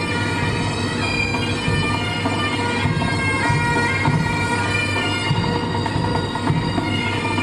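Wind-instrument music: a melody played over a steady, unbroken drone.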